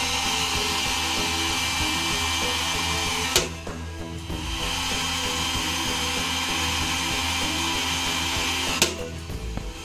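Heat gun running on high with a steady blowing hiss, heating a PC processor to soften the solder that holds its gold pins. Twice, about three seconds in and near the end, a sharp tap as the chip is knocked against the metal pot to shake the loosened pins off.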